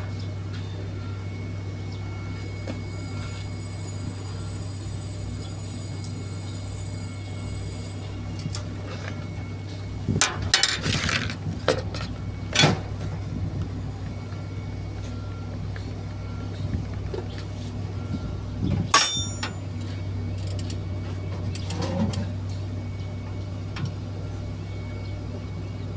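An engine running steadily with a low hum. Scattered knocks and clinks sound over it: a clatter in the middle, and a single sharp knock, the loudest sound, about three quarters of the way through.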